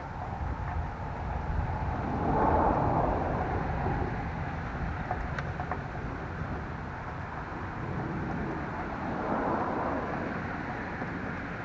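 Motor vehicles passing by, heard as a rushing noise that swells about two seconds in and again near the end, over a steady low rumble.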